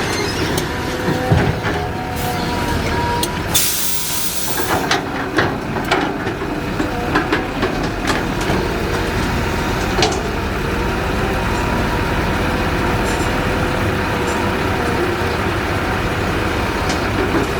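Caterpillar 323 hydraulic excavator running steadily, its engine drone carrying a few steady whining tones, with scattered sharp knocks. A loud hiss lasting about a second comes in near four seconds in.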